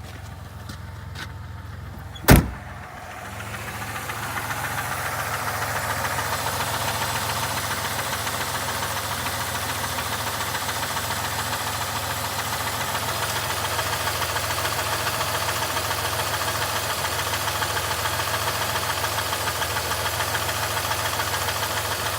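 1999 Buick Century's 3.1 V6 idling with a fast rhythmic knock, heard quieter at first and then louder and closer from about four seconds in. A single loud slam comes a little over two seconds in. The owner suspects the knock is piston slap, though he is unsure whether it is a knock or a lifter tick.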